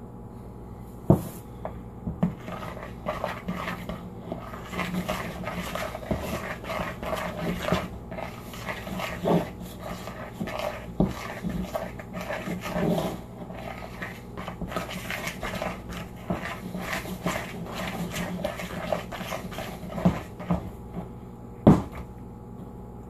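Flour being mixed by hand in a plastic mixing bowl: irregular scraping and rustling, with sharp knocks from the bowl and a plastic measuring cup, the loudest about a second in and near the end.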